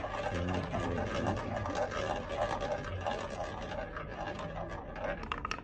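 Roulette ball spinning around the wheel's track as a radio-play sound effect, over a low murmur of a crowd at a casino table. Near the end it clicks in a quick run of ticks as it drops and bounces across the pockets.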